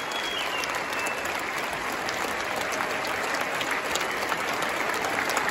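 A large concert audience applauding: dense, steady clapping from many hands, with a high held whistle in about the first second.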